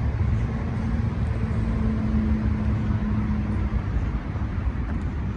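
Road traffic rumbling, with a motor vehicle's steady engine hum that holds for about three and a half seconds and then fades out.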